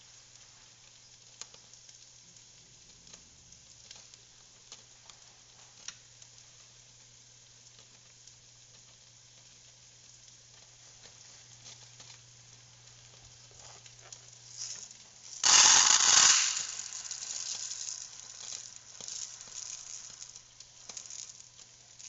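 Onions frying in butter with a faint, steady sizzle under a low hum, with a few small clicks. About two-thirds of the way through comes a loud rush of rattling noise lasting about a second, then scattered rattles and rustles.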